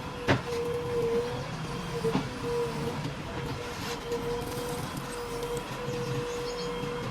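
JCB 3DX Plus backhoe loader running, with a steady high whine over the engine rumble. A sharp knock comes about a third of a second in and a lighter one about two seconds in.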